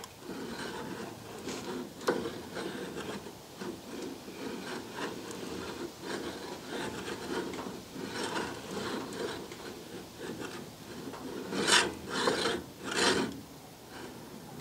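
Dana 25 front differential turned slowly by hand at the hub: the ring gear and spider gears scraping and grinding as they rotate, with three louder scrapes near the end. The ring gear is loose on its flange, its bolts sheared.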